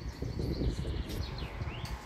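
Gusty wind buffeting the microphone in uneven low rumbles, with birds chirping over it; a short rising chirp comes near the end.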